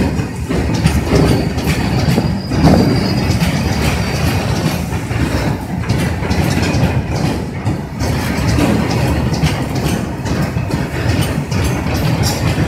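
BTPN petroleum tank wagons of a freight train rolling past close by: a steady rumble of steel wheels with a clatter of knocks as the bogies cross rail joints. A faint high wheel squeal comes in for a couple of seconds about two seconds in.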